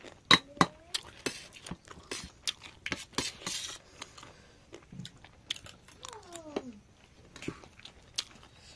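Cutlery clicking and clinking against a plate or bowl, with crunchy chewing and biting while eating singju. A brief falling vocal sound comes a little after six seconds.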